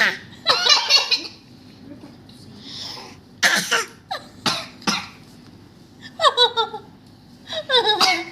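A person coughing: several short, separate coughs through the first five seconds. Short voiced sounds follow near the end.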